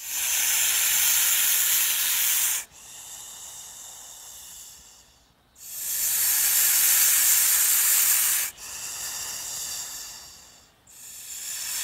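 Loud hissing in long pulses: two hisses of nearly three seconds each, each followed by a fainter hiss, with a third swelling near the end.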